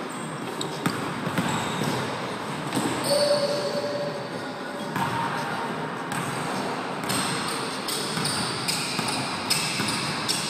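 A basketball bouncing on a hardwood gym floor during play, echoing around the gym. Sneakers squeak several times in the second half.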